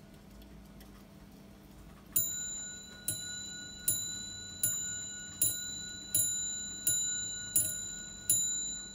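Antique gilt metal and porcelain mantel clock ticking faintly, then striking the hour on its bell: nine strokes about three-quarters of a second apart, each ringing on and fading before the next.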